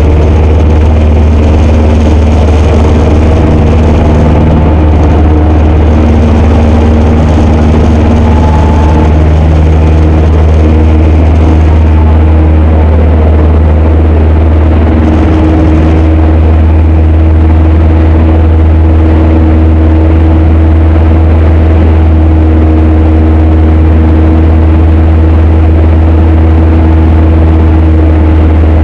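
Cessna 152's four-cylinder Lycoming engine and propeller running at takeoff power through the takeoff roll and initial climb: a loud, steady low drone heard inside the small cabin.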